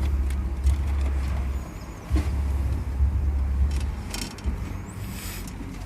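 A low rumble that cuts out twice, with scattered clicks and scrapes of wiring and plastic being handled as wires are fished with a claw pickup tool behind a car dashboard.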